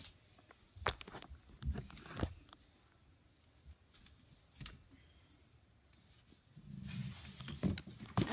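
Handling noise in a closet: clothes and hangers rustling and knocking as the phone is moved among them, with a few sharp knocks about a second in and rustling again near the end.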